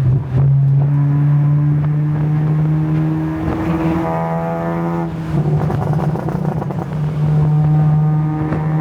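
Honda Civic FD's engine and exhaust running at steady revs, a loud steady drone that dips and changes briefly a couple of times, as if between throttle or gear changes.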